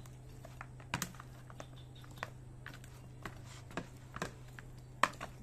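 Stainless steel perforated skimmer ladle knocking and scraping against a plastic bowl while tossing pieces of steamed duck in dry spice mix: irregular light clicks and taps, the loudest about five seconds in, over a steady low hum.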